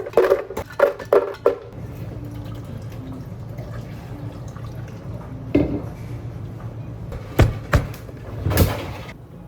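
Drink-making at a cafe counter: a quick run of knocks and clinks, then a steady low hum with a few single knocks and a short swishing burst near the end, with a hint of liquid being handled.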